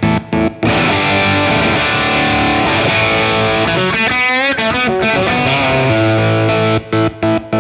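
Distorted electric guitar played through a kill switch pedal whose auto-kill mode chops the signal on and off about three to four times a second. Near the start the chopping stops for about six seconds of unbroken playing with a pitch swoop in the middle, and it starts again near the end.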